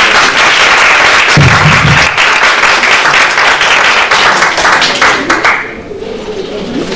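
Audience applause, a dense patter of many hands clapping that dies away about five and a half seconds in.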